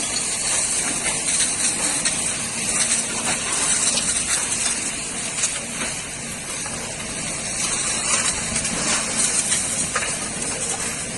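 A steady rushing noise with no clear pitch, spread from low to high and holding at an even level.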